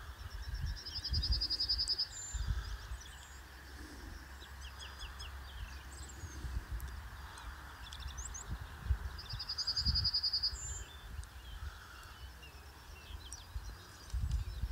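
Songbirds singing: a fast, high trill of quickly repeated notes comes twice, about eight seconds apart, among scattered short chirps. Low rumbling gusts of wind buffet the microphone throughout.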